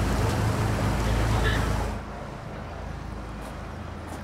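A steady low engine hum under loud rushing wind and water noise, which cuts off abruptly about two seconds in. A quieter background with a few light clicks follows.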